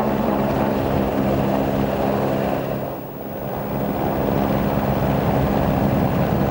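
Rally-raid car engine running at steady revs, with road and gravel noise; it dips briefly about halfway through.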